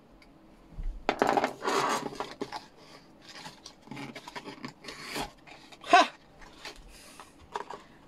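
Long-bladed foam-cutting knife slicing through a thin cardboard box in a series of uneven rasping, scraping strokes, with one sharp click and a brief ring about six seconds in.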